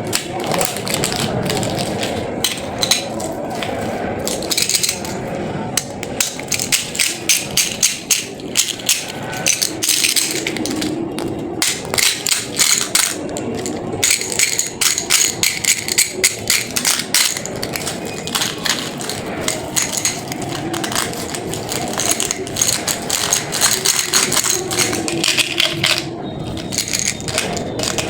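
Candy and its packaging being handled: rapid, irregular clicks, crackles and rattles, like wrappers crinkling and sweets knocking together.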